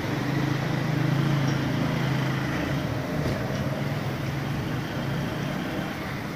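Road traffic: the steady low hum of a passing motor vehicle over general traffic noise, swelling in the first second and easing off toward the end.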